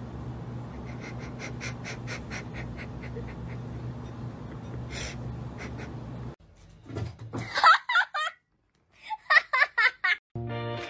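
A person laughing quietly in short breathy bursts, about five a second, over a steady low room hum. After a sudden cut, a louder high-pitched voice comes in two groups of short bursts.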